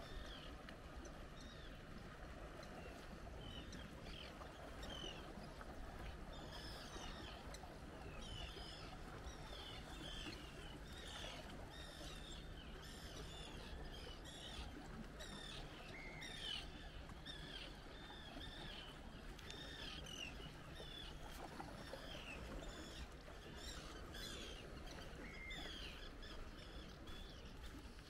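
Small birds chirping with many short, quick calls, thickest in the middle, over a steady low outdoor background with a faint low hum.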